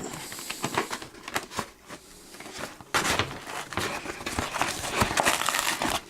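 Packaging being opened by hand: crinkling, rustling and tearing, with a sharp click at the start and busier rustling from about halfway.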